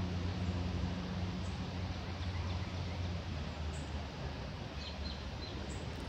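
Outdoor background noise: a steady hiss with a low hum that fades out about halfway through, and a few faint short high chirps of small birds near the end.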